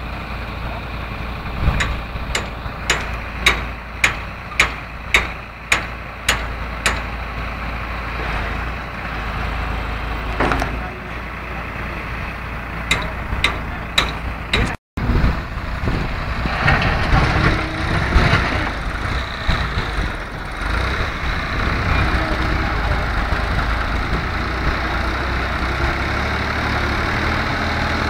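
New Holland 3630 tractor's diesel engine running steadily while working a front-end loader, with a run of sharp clicks about two a second for several seconds early on. Midway the sound drops out for a moment, then the engine works harder with a coarse scraping rattle as the loader bucket digs into gravel.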